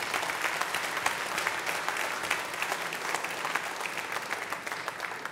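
Audience applauding: many hands clapping in a dense, steady patter that thins out near the end.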